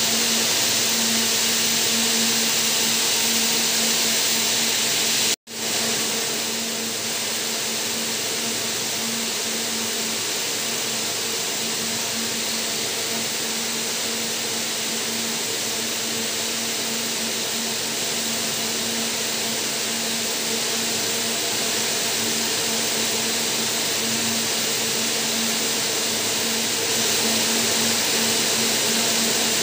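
Yarn twisting and winding machines running: a steady whirring drone with a low hum, broken only by a momentary cut-out about five seconds in.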